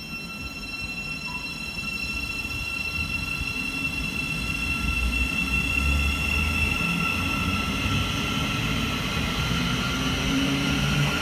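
Siemens Class 700 Thameslink electric train pulling away, its traction equipment whining with steady high tones while lower tones step up in pitch and the sound grows louder.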